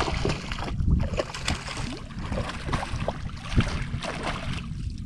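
Hooked redfish thrashing at the water's surface, a run of irregular splashes, with wind noise on the microphone.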